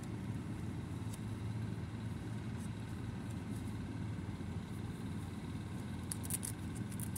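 Steady low background rumble with faint, soft ticks and rustles from a small doll's clothes being handled, a few of them close together near the end.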